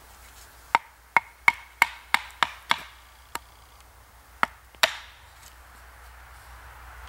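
Large knife chopping into wood on a stump, splitting kindling: a quick run of seven sharp knocks, about three a second, each with a short ring, then a lighter knock and two more a little later.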